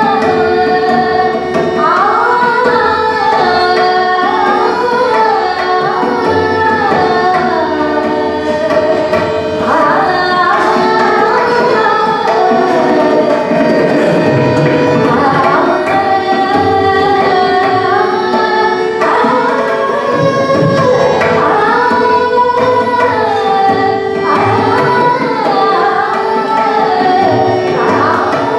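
Hindustani classical vocal music: a woman singing winding, gliding melodic phrases over a steady drone, accompanied by tabla.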